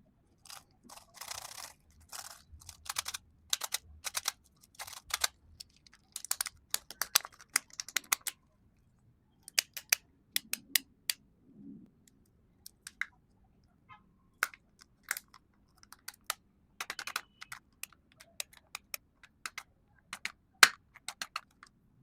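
Small plastic surprise eggs and candy being handled and opened: a run of sharp plastic clicks, snaps and taps, some in quick clusters with short rustling, with pauses between and one louder snap late on.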